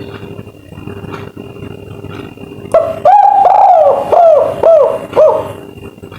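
Spotted dove (tekukur) cooing a 'kuk 3' phrase, loud over a steady background hum. One long coo starts almost halfway in and is followed by three shorter arching coos.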